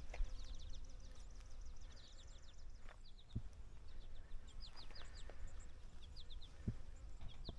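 Small songbirds chirping faintly in quick runs of three or four high, falling notes, repeated every second or so, over a low outdoor rumble with a few soft knocks.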